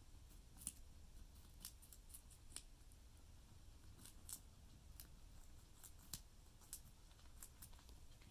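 Guinea pigs chewing raw carrot pieces: faint, irregular crisp crunching clicks, about two a second.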